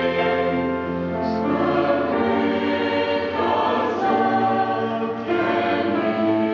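Mixed choir of young men and women singing in harmony, holding sustained chords that shift every second or two.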